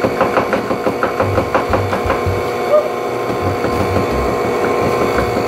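KitchenAid Artisan stand mixer running, its flat beater turning through cookie dough as flour is spooned in. A steady motor hum with a quick, regular ticking, about five times a second.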